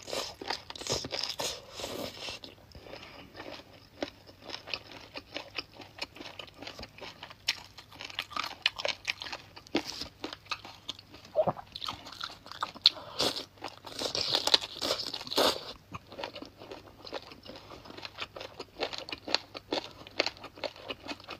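A person biting and chewing sauced chicken feet: wet smacking with many quick, irregular crunchy clicks of skin and cartilage.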